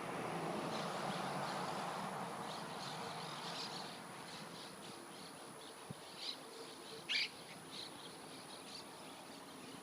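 A flock of monk parakeets (Quaker parrots) squawking some way off, with many short scattered calls and one louder call about seven seconds in. A rushing noise fades over the first few seconds.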